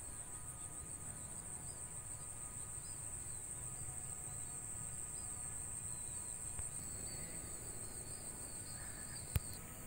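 Steady high-pitched insect chorus with a faint fast pulsing. A single sharp click about nine seconds in.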